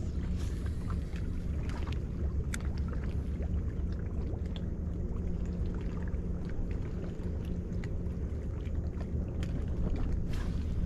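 Steady low rumble aboard a bass boat, with faint scattered light ticks and taps.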